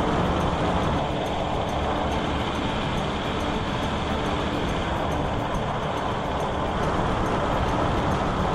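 Jowett car driving at speed on a dual carriageway: steady wind and road noise with the engine running underneath.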